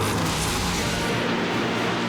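Cartoon background music with a steady score, overlaid in the first second or so by a loud noisy rush of action sound effects.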